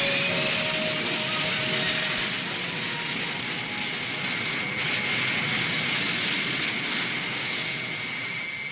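Sci-fi spaceship engine sound effect: a steady, jet-like rushing hiss with a thin high whine, the battleship running under way in space flight.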